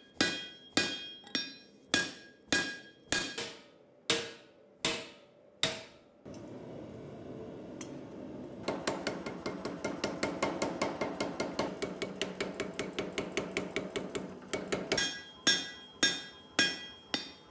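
Hammer blows on a red-hot EN9 steel axe head on an anvil. For about six seconds the ringing strikes come a little over one a second. After a short pause comes a fast run of duller strikes, about seven a second, and then slower ringing blows again near the end.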